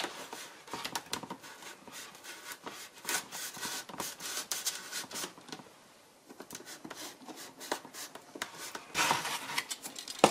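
Snap-off utility knife cutting through painted foam around a glued-in wooden motor mount plate: a run of short scratchy strokes, pausing briefly about six seconds in, with a louder flurry near the end.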